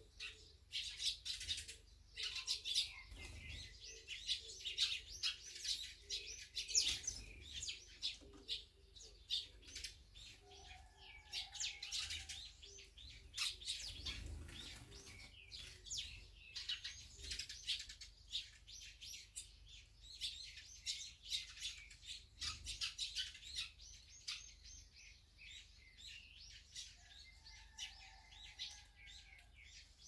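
A flock of Eurasian tree sparrows chirping busily, many short high chirps overlapping without a break, with a softer, lower call heard twice.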